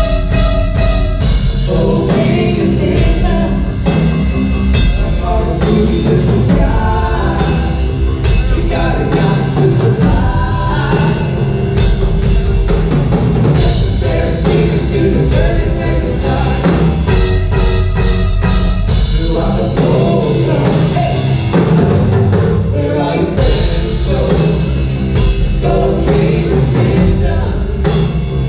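A live band playing loudly on stage, with a drum kit, other instruments and a singer's voice.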